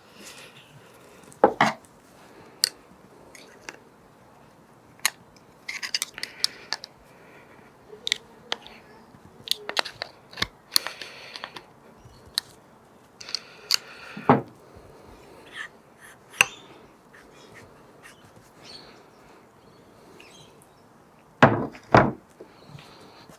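Metal hand tools and motorcycle front-fork parts being handled: scattered light clicks and clinks, with louder knocks about a second and a half in, about fourteen seconds in, and twice close together near the end.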